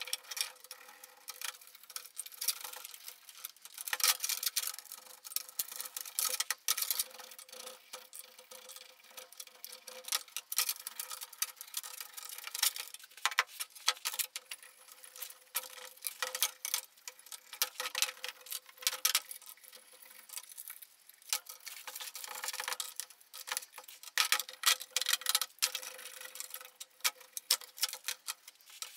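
Brush scrubbing rust off a steel Hi-Lift jack part during rust removal: quick, irregular scratching strokes with many small ticks and clicks.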